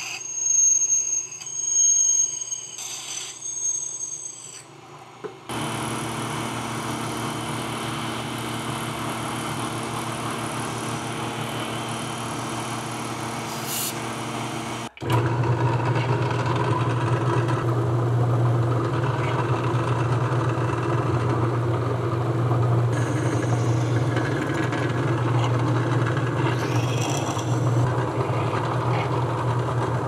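Shop machine tools working an aluminium part, in edited pieces: a high-pitched squeal for the first few seconds, then a steady motor hum, and after an abrupt cut about halfway through, a louder, deeper steady hum.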